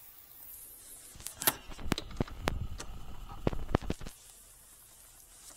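Hand socket ratchet clicking in short, irregular runs as motorcycle front brake caliper mounting bolts are tightened by hand, over a low rumble of handling. The clicking stops about four seconds in.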